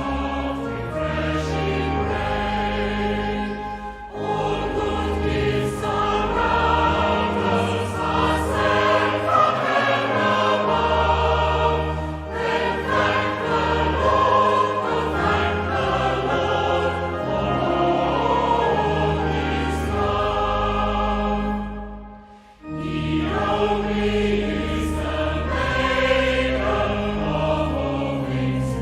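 A choir singing a hymn, with sustained low bass notes under the voices and one short break between phrases a little past the three-quarter mark.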